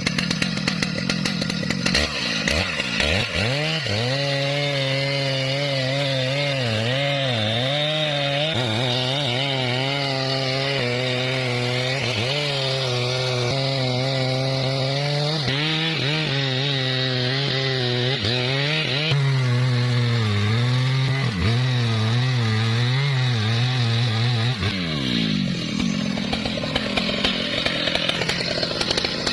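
Chainsaw revving up about two seconds in, then running at high speed while cutting through a large tree, its pitch dipping and recovering as the chain bites into the wood. Near the end it drops back off the throttle.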